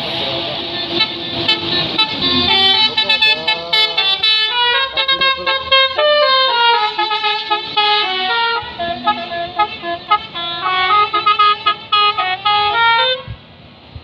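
Multi-tone musical air horn of the "telolet" kind sounding a quick tune of short notes that jump up and down in pitch, for about eleven seconds, then cutting off suddenly near the end.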